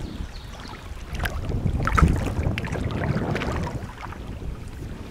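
River water splashing and lapping against a moving kayak's hull, with wind rumbling on the microphone. It grows louder for a couple of seconds in the middle.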